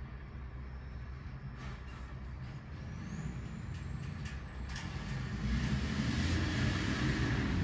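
Steady low rumble of a motor vehicle, with a few light clicks, swelling about five seconds in into a louder rush with hiss, like a heavy vehicle passing close by.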